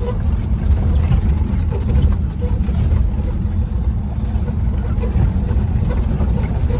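Off-road vehicle driving over a rough mountain track: a steady low engine and road rumble with scattered small knocks and rattles.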